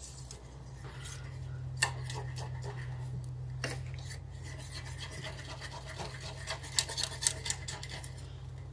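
A small spring coil whisk stirring a thick white sauce in a stainless steel saucepan, rubbing and scraping over the pan's bottom and sides. Light metal clicks of the whisk against the pan come now and then, with a quick run of them late on. A low steady hum sits underneath.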